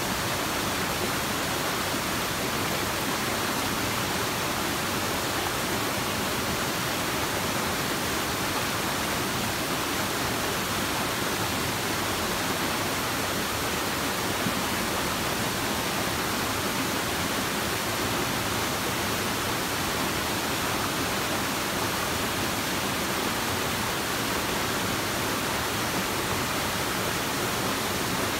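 Steady rush of flowing water from a nearby stream, an even hiss with no breaks.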